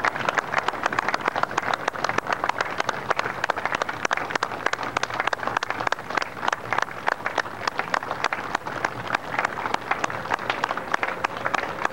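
Footsteps of a large column of marchers on pavement: a dense, irregular clatter of many shoes striking the road, not in step.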